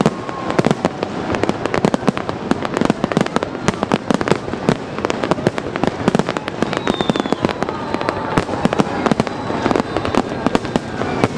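Fireworks display going off: a dense, continuous run of bangs and crackles, many strikes a second.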